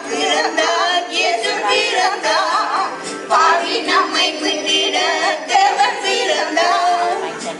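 A group of women singing a song together, the melody wavering up and down, over steady held notes from an electronic keyboard.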